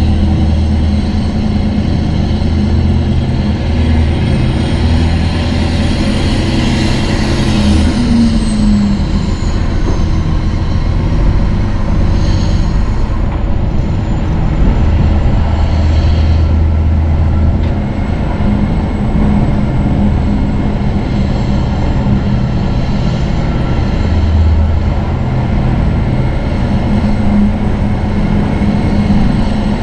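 Heavy semi truck's diesel engine running steadily under way, a low, even drone with a faint high whine above it that rises, falls and then levels off.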